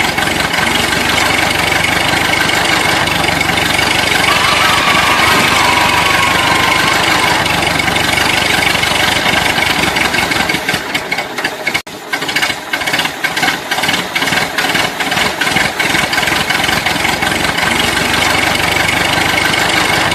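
Tractor engine sound, running steadily like an idling engine, broken off briefly about twelve seconds in and then chugging on.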